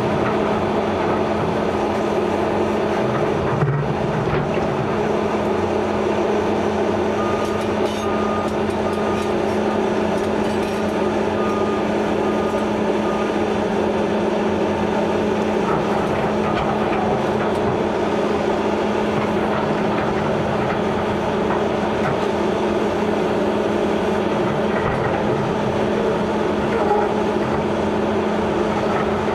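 Liebherr 944 C hydraulic crawler excavator's diesel engine running steadily under working load, a constant hum, with a few sharp knocks of masonry and rubble as the bucket breaks into the building.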